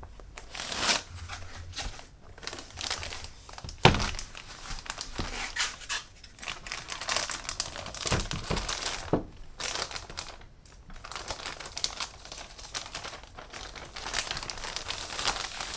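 Clear plastic protective bag crinkling and rustling as a laptop is handled and pulled out of it, with a sharp knock about four seconds in.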